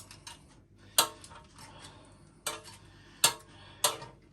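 Cutlery clinking and scraping against a plate and baking tray as food is served up, four sharp clinks spread over a few seconds.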